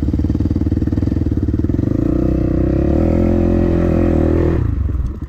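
Dirt bike engine running, its revs climbing from about two seconds in as it pulls up a steep bank, then dropping away sharply near the end.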